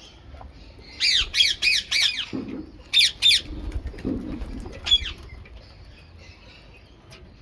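Rose-ringed parakeet calling in short, sharp, falling calls: a quick run of four about a second in, two more around three seconds, and a single one near five seconds.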